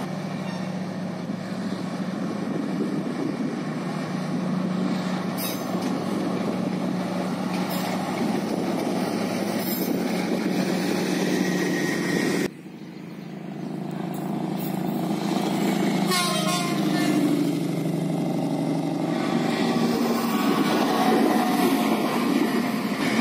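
Passenger trains running on the line: a steady rumble with a low hum, which cuts off abruptly about halfway. Another train is then heard approaching, growing steadily louder as it passes close by.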